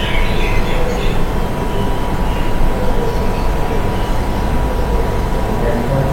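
Steady low rumble of a moving vehicle, with a thin constant high tone running through it.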